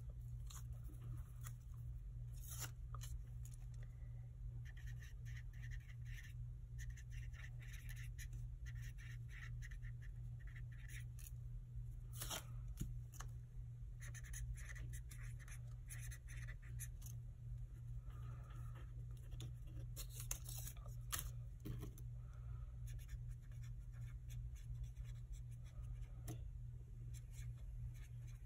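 Felt-tip marker pen writing on paper stickers and sticky notes, in short scratchy strokes that come in patches with brief pauses, over a steady low hum.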